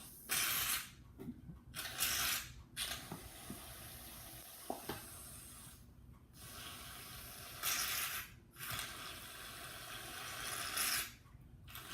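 Aerosol shaving cream can spraying foam out in several hissing bursts, with a softer steady hiss between them.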